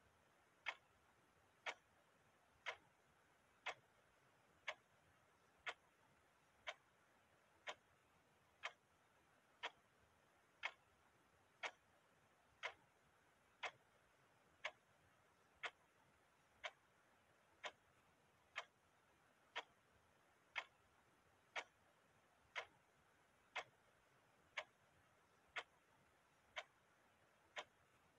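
Clock ticking steadily, one sharp tick about every second.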